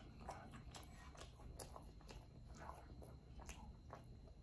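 Near silence with faint, scattered wet mouth clicks from slow chewing of spicy fried chicken.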